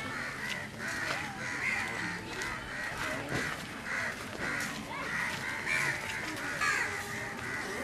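Birds calling: a steady run of short calls, about two a second.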